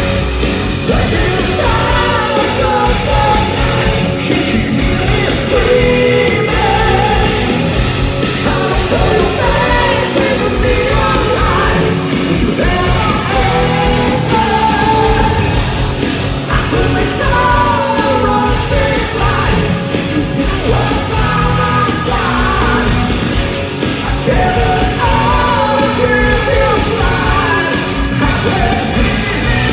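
Live metal band playing loudly: a male lead vocal sung and belted over distorted electric guitars, bass and a drum kit.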